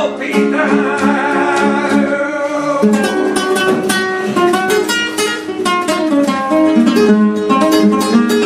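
Flamenco guitar with a capo playing a seguiriya passage between sung verses. Held notes give way, about three seconds in, to quick picked runs and strums.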